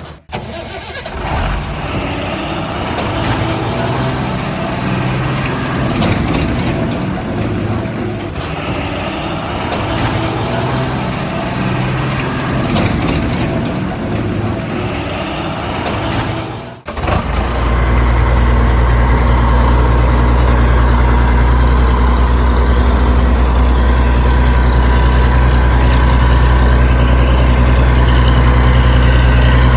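Heavy diesel engine sound of a truck or backhoe loader, running with uneven, shifting revs, breaking off abruptly about seventeen seconds in and then settling into a steady, deep idle.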